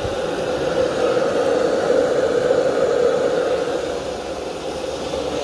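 Electric blower fan on the chimney of a coal-fired 5-inch gauge model steam locomotive, running steadily to draw the fire while steam is raised.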